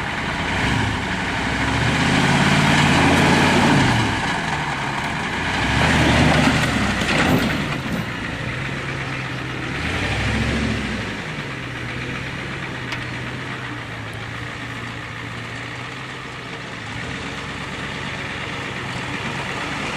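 Ford pickup truck's engine revving up and down in three bursts, with a brief rush of noise about seven seconds in, then settling to a steady idle for the second half.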